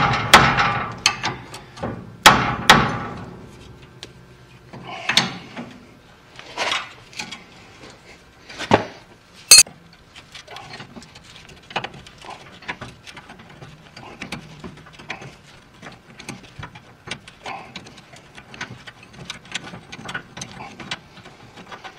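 A wrench working the steering-knuckle clamp bolt on a 1948 Chevrolet's front suspension: several loud metallic clanks in the first few seconds, a sharp metallic ring about ten seconds in, then a long run of light, irregular clicks as the bolt is turned out.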